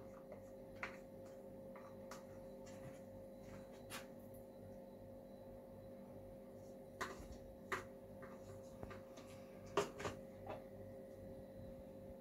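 A steady low hum from a machine or appliance, with a few light clicks and taps scattered through it, the sharpest about seven seconds in and two close together about ten seconds in.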